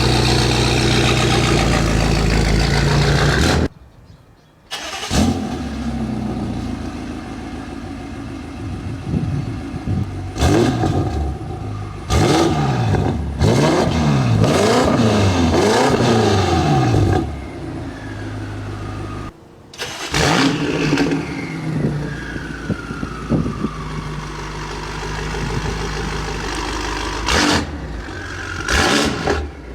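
BMW M5 Competition's twin-turbo V8 running and being revved through several spliced clips, as in its Comfort, Sport and Sport+ modes. A quick run of blips rises and falls about twelve to seventeen seconds in, and the revs sink slowly after twenty seconds; the sound cuts off abruptly near four seconds and again near nineteen.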